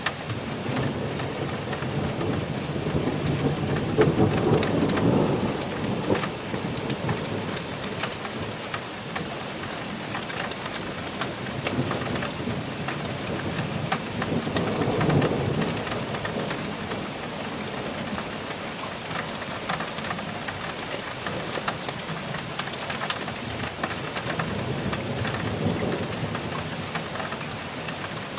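Thunderstorm: steady rain falling throughout, with rolling thunder rumbles swelling about four seconds in, again about fifteen seconds in, and more faintly near the end.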